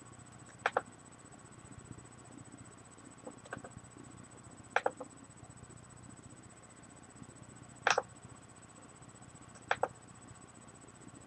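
Computer mouse clicks: five separate short double clicks spread out over several seconds, each a quick press-and-release pair, over a faint steady hum.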